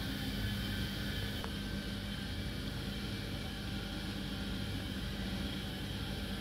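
A steady low hum under a constant hiss of background noise.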